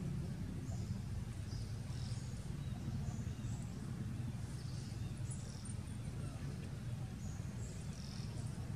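Outdoor background: a steady low rumble with short, high chirps scattered throughout.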